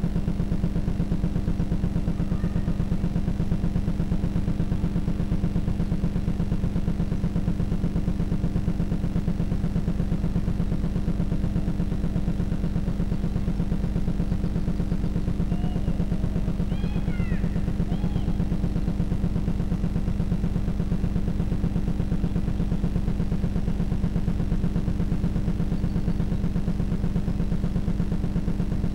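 A steady low mechanical drone with a fast, even pulse, unchanging in pitch and level throughout.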